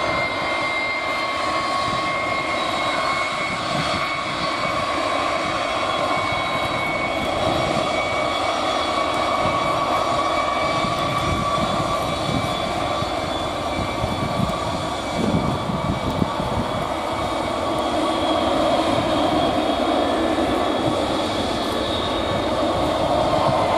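McDonnell Douglas KDC-10 tanker's three turbofan engines running as the jet taxis: a steady whine of several held tones over a rushing roar, growing a little louder in the last few seconds.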